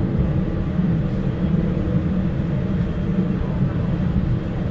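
Steady low rumble and hum inside the cabin of a Boeing 787-8 Dreamliner parked before taxi, with the aircraft's systems running.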